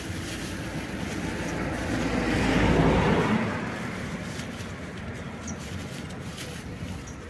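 A road vehicle passing close by, swelling to its loudest about three seconds in and then fading, over a steady background rumble of traffic.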